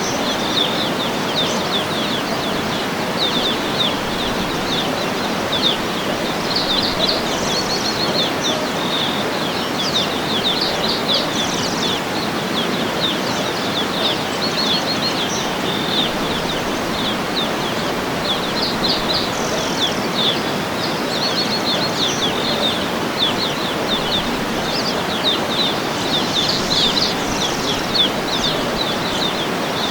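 Steady rushing of a waterfall, with birds chirping in quick runs of high notes that come and go.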